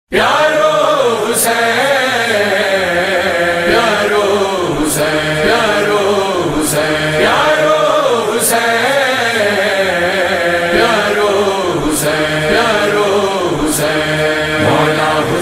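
Men's voices chanting a noha, a Shia lament for Imam Hussain, with a sharp slap of matam (chest-beating) every one and a half to two seconds.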